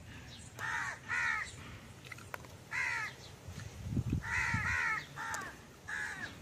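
Crows cawing, about seven short harsh caws, some in quick pairs.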